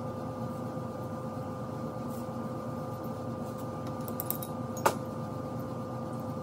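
Light metal clicks as the cast-iron tailstock parts of an old Atlas lathe are handled and fitted, with one sharper click about five seconds in. A steady background hum with a faint tone runs beneath it.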